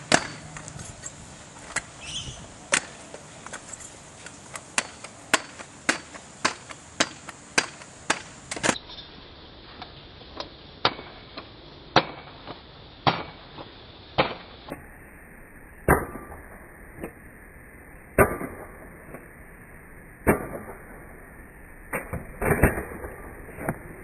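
Stunt scooter hitting asphalt again and again as the rider lands hops and tricks: sharp, irregular knocks and clacks. They come close together for the first several seconds, then a second or two apart, with a quick cluster near the end.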